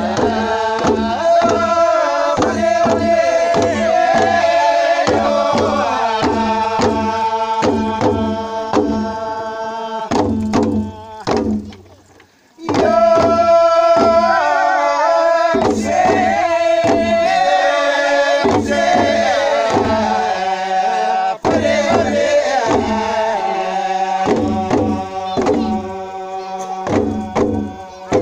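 Group of voices singing a traditional Papua New Guinean singsing chant over steady drumbeats. The song breaks off briefly a little before halfway, then starts up again.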